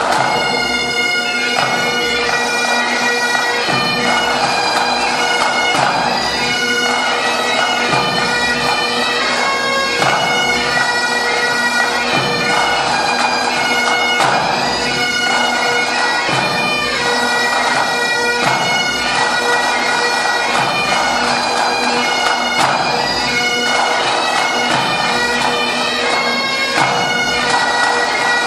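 A pipe band's Highland bagpipes playing a tune, the chanters' melody moving over the steady drones.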